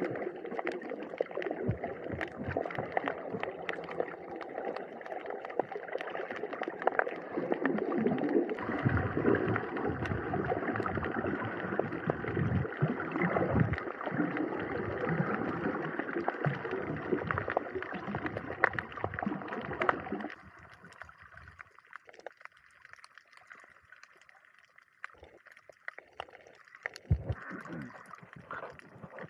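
Water sloshing and gurgling around the camera during snorkeling, with many small knocks and splashes. About twenty seconds in it drops suddenly to a much quieter sound with scattered faint clicks.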